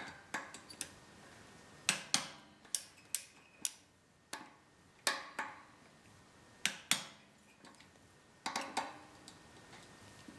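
Torque wrench and hex socket clicking on the head bolts of a cast iron air compressor pump while they are retorqued to 26 newton metres after break-in. The sharp metallic clicks come irregularly, some singly and some in quick pairs.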